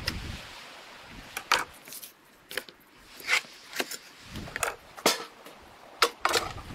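Knife chopping and cutting through sturgeon heads on a wooden cutting board: about ten sharp, separate knocks and cracks at uneven intervals.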